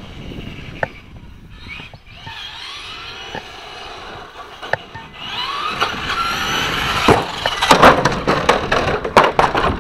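Traxxas Slash RC truck's 12-turn brushed electric motor on a 2S battery whining, its pitch rising as the truck speeds up, with the truck running louder from about halfway. A dense crackling rattle comes in over the last couple of seconds.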